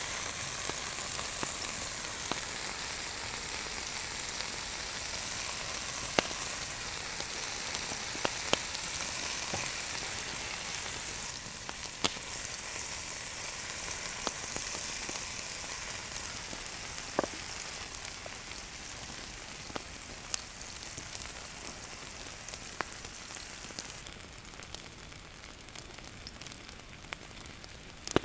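Chunks of meat and red onion halves sizzling in hot fat in a black steel frying pan, a steady high hiss with scattered sharp pops. The sizzle eases somewhat near the end.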